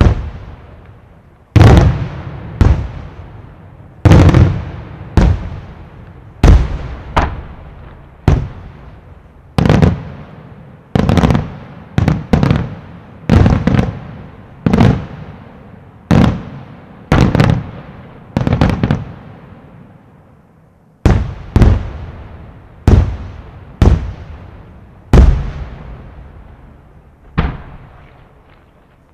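Aerial firework shells bursting in steady succession, about one sharp bang a second, each followed by a fading echoing tail, with a short lull about two-thirds of the way through.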